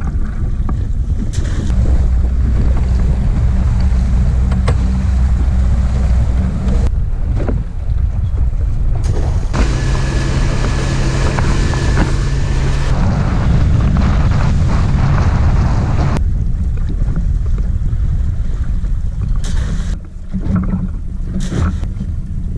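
Small boat's engine running steadily with wind buffeting the microphone and water noise; the sound shifts abruptly several times.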